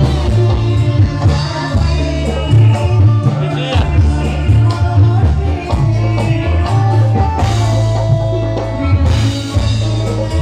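Music with a strong, steady bass beat.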